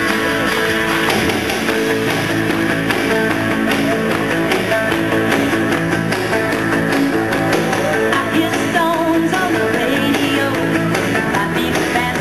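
Country music with guitar playing.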